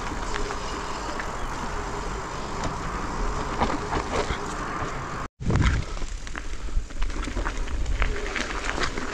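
Mountain bike riding down a rough trail: tyres rolling over dirt and rocks, with many short clicks and rattles from the bike and wind rumbling on the microphone. The sound cuts out completely for a moment a little over five seconds in, then the riding noise carries on.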